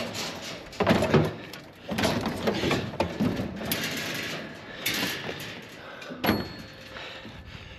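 A bicycle being pushed and wedged onto a scrap-laden wire-mesh cage trailer: a string of irregular clanks, knocks and rattles of the bike's frame and wheels against the metal scrap and the cage, loudest about a second in.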